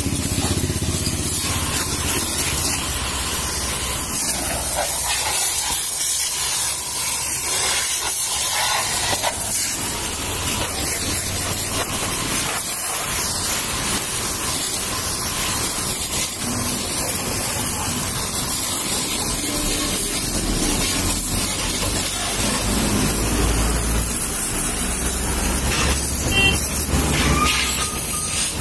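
High-pressure water jet from a pressure washer nozzle hissing steadily as it sprays and splatters against a motorcycle's body, engine and front wheel. A low hum comes in about twenty seconds in.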